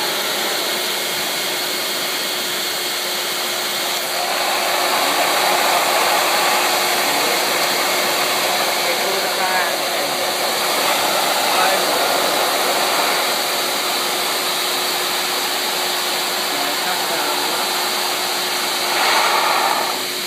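Air dryer of a homemade scale-model car wash, blowing air steadily through slotted PVC pipe manifolds, with a constant hum under the rush of air. It gets louder about four seconds in and swells briefly near the end.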